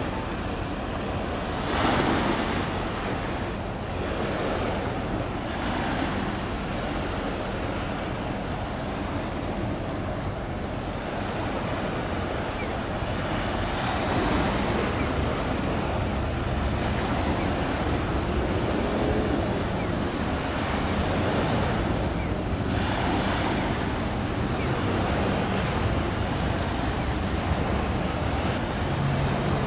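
Water washing against the shore under wind noise on the microphone, with gusts swelling about two seconds in, around fourteen seconds and again near twenty-three seconds.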